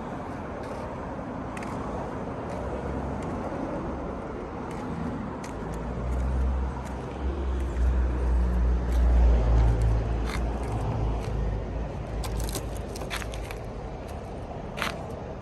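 A vehicle engine's low rumble swells and fades over several seconds, with a few sharp clicks near the end.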